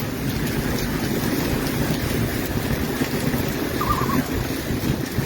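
Gusty wind blowing on the microphone over steady pouring rain during a thunderstorm, a continuous noise heaviest in the low end.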